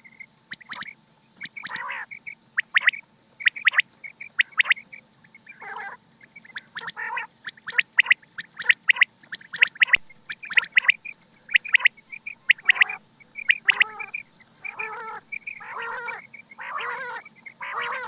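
Rain quail calling: short, sharp high notes in quick repeated series, mixed with harsher, lower croaking calls that come more often toward the end.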